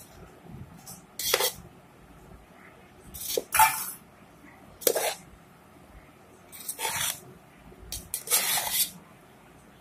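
Metal spatula scraping and turning cooked biryani rice in a metal pot, about five short swishing strokes spaced a second or two apart.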